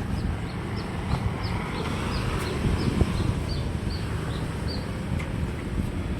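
Steady low rumble of a truck's engine and road noise, with a run of about a dozen short, high chirps, a bird-like twitter, about three a second, that stops near the end.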